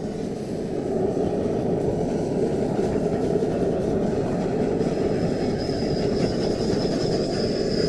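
Gas torch burner running steadily, drying the old zinc gutter before it is taped. A faint high whistle joins about five seconds in.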